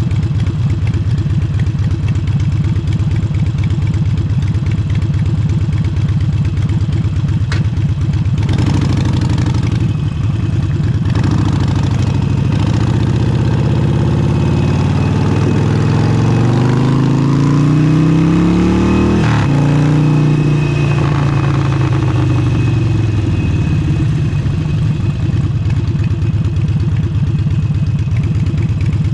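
Harley-Davidson Forty-Eight's air-cooled V-twin through a Vance & Hines exhaust: it runs steadily at low revs, then about eight seconds in it pulls away, the revs climbing in steps through several gear changes, and later eases off and settles back to a steady low rumble.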